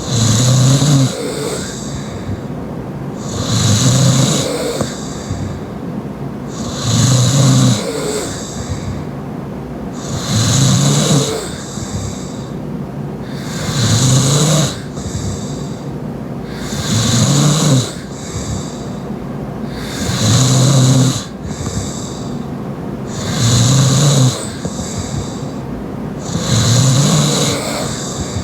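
Heavy open-mouthed snoring from a sleeper: a loud snore about every three and a half seconds, nine in all, each a low buzzing rasp with breathy hiss, with quieter breathing between.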